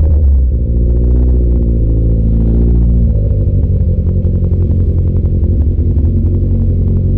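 Kawasaki Z900's inline-four engine and exhaust running at low revs. The note drops in pitch in the first half-second, then holds steady with a deep rumble.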